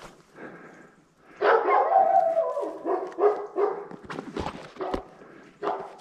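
Wolf-like howls and barking yips, a string of short pitched calls that bend and slide down in pitch, loudest from about a second and a half in and fading after about four seconds. A couple of low thumps follow near the end.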